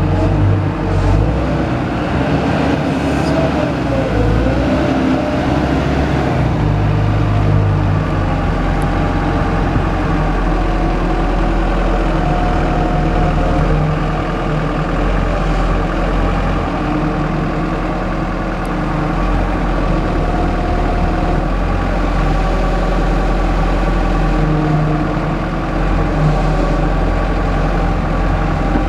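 Komatsu PW160 wheeled excavator's diesel engine running steadily under load, its low drone shifting in pitch now and then, with faint whining tones coming and going over it.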